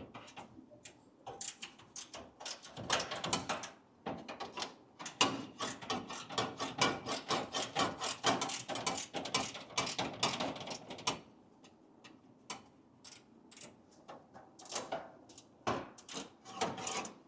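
Hand tools working on bolts and brackets: long runs of rapid clicking and scraping, busiest in the first two-thirds, thinning to scattered clicks near the end.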